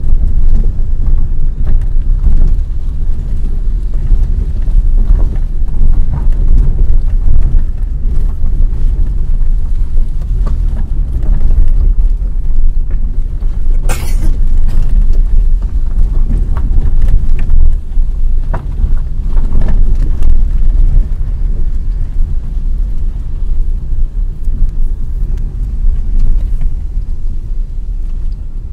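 Low, uneven rumble of a car driving slowly over a rough, unpaved lane, heard from inside the cabin, with a single sharp click about halfway through.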